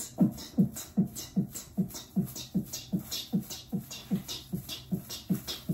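Fast, steady dance beat: a low kick-like thump about two and a half times a second, with a hissing hi-hat-like stroke between the thumps.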